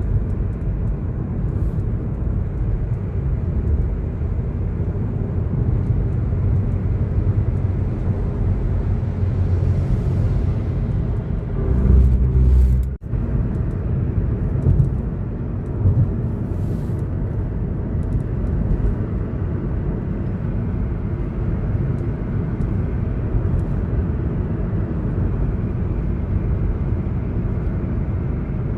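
Honda City cabin noise while driving: a steady low rumble of road and engine. There is a louder swell about twelve seconds in that cuts off abruptly.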